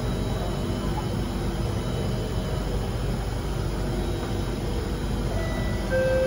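Steady low rumble inside the carriage of an Alstom Metropolis C830 metro train at a station platform. A clear steady tone begins right at the end.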